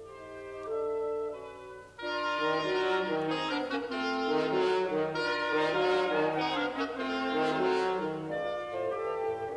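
Woodwind quintet of flute, oboe, clarinet, French horn and bassoon playing. A few upper voices at first, then about two seconds in the full ensemble comes in louder with low bassoon notes beneath, thinning out again near the end.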